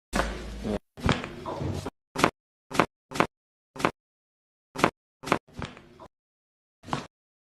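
Chiropractic adjustment: a string of short, sharp pops and slaps, about seven in all, each cut off by dead silence, after a couple of longer rustling stretches in the first two seconds.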